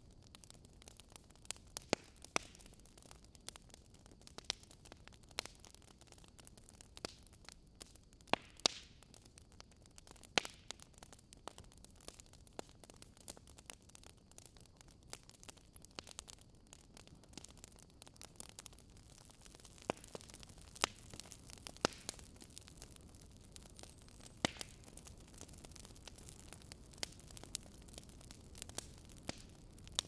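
Wood fire crackling faintly: irregular sharp pops and snaps over a low steady hiss.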